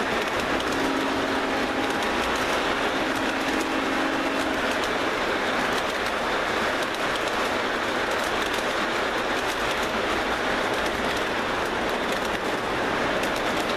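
O scale model freight train rolling past, its metal wheels running over the track in a steady rumble with fast, dense clicking from the rail joints. A low hum sits under it for the first few seconds and then stops.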